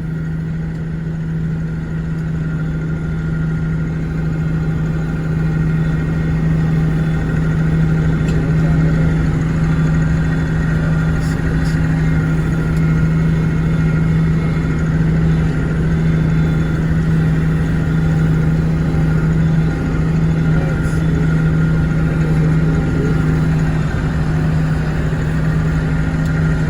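Four-wheeler (ATV) engine running steadily at an even pitch while being ridden, getting slightly louder over the first few seconds.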